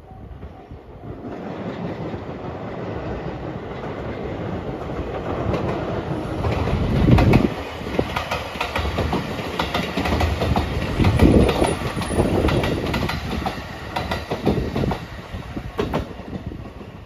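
Marine Liner electric multiple unit (JR West 223-5000 series with a JR Shikoku 5000 series car) passing at speed: a rumble that builds as it approaches, with wheels clacking over rail joints through the middle of the pass, then fading near the end.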